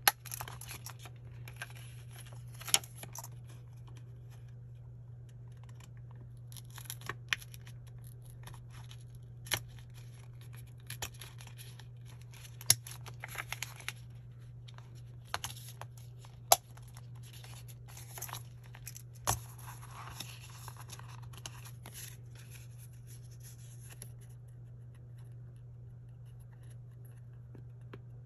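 Small metal binder rings of a mini clear plastic three-ring binder snapping open and shut in a series of sharp clicks, between crinkly rustling of clear plastic and paper pages being handled. A steady low hum runs underneath, and the handling grows quieter near the end.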